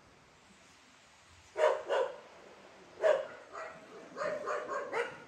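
A dog barking: two sharp barks about a second and a half in, another at about three seconds, then a run of quicker, fainter barks near the end.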